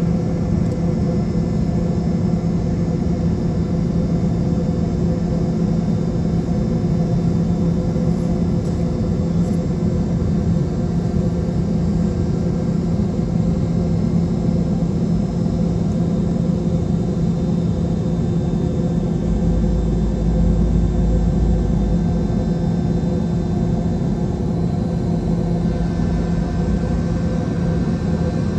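Steady cabin noise inside a Boeing 717-200: an even engine and air-system hum with a strong low drone and fainter steady tones above it. A deeper rumble swells for a couple of seconds about two-thirds of the way through.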